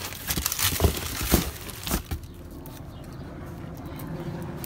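Cardboard box and rolls of masking paper being rummaged and knocked about: a few knocks and paper rustles in the first two seconds, then only a faint steady hum.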